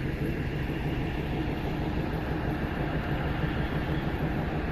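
Diesel engine of a DEMU (diesel-electric multiple unit) train's power car idling at a standstill: a steady low drone that does not change.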